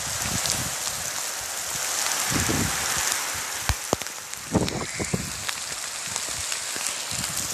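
Hail falling with rain: a dense steady hiss full of sharp ticks as hailstones strike the ground and surfaces, with a few louder knocks about halfway through.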